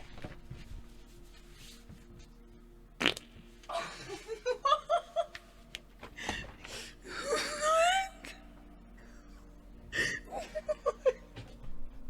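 A person farting close to the microphone: after a sharp click, a run of drawn-out, pitched farts that rise and fall in pitch, then a short run of giggles near the end.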